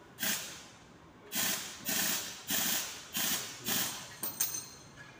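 About six short hissing spray blasts in quick succession over transmission valve body parts, each starting sharply and fading, followed by a few light clicks near the end.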